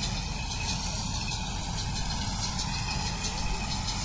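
Tractor running steadily while pulling a small square baler at work in the field, with faint irregular ticks from the machinery.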